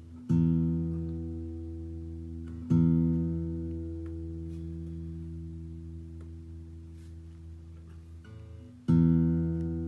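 Open low E string of an acoustic guitar plucked three times, each note left to ring and slowly fade: tuning against a strobe tuner, with the string reading slightly flat, but not by much.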